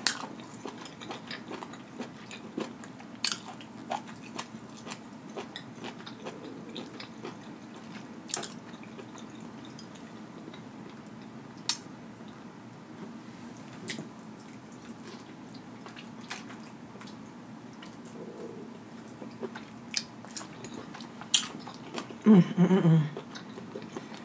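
A person chewing lobster meat close to the microphone: wet mouth noises with scattered sharp lip-smacks and clicks. Near the end comes a short hummed "mm" of enjoyment.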